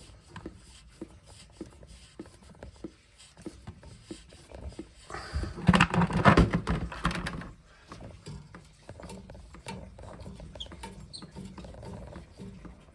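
Small metallic clicks and knocks of valve work, then about five seconds in a loud rush lasting a couple of seconds: water flushing out through the opened feed water valve during a backwash to clear its strainer.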